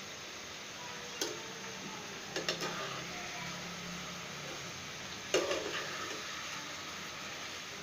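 Fish curry sizzling steadily in a frying pan while a spatula turns the pabda fish pieces, knocking and scraping against the pan about three times.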